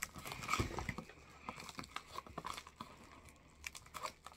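Shipping mailer bag crinkling and rustling in the hands, a scatter of small irregular crackles, as it is being opened by cutting.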